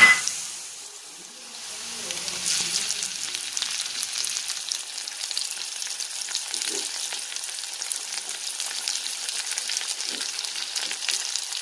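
Chopped onions, green chillies and tomatoes sizzling and crackling in hot oil in a pan. The sizzle jumps up about two seconds in as the tomatoes go in, then stays steady. A single sharp knock comes right at the start.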